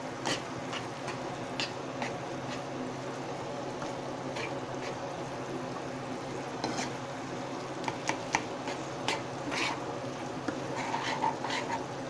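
Ground beef sizzling as it browns in a frying pan: a steady frying hiss with scattered small pops and light clicks, a little busier near the end.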